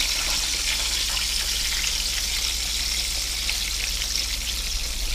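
Buttermilk-battered chicken deep-frying in hot oil in a pot: a steady sizzle with fine crackling.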